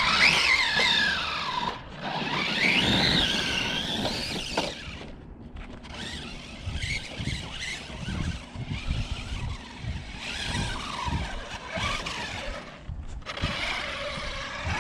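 Large-scale RC truck's brushless motor and drivetrain whining up and down in pitch with bursts of throttle, loudest in the first five seconds. After that it runs quieter, with the tyres crunching and knocking over dirt. The gear mesh is set too tight, which makes the gear whine harsher.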